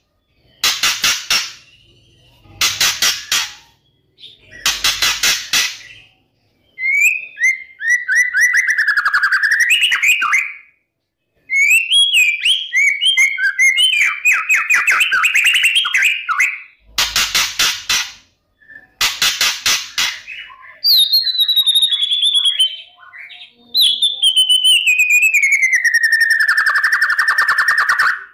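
White-rumped shama (murai batu) singing: short bursts of harsh, rapid rattling notes alternate with long, fast warbling and trilled phrases. It ends on a long trill that slides steadily down in pitch.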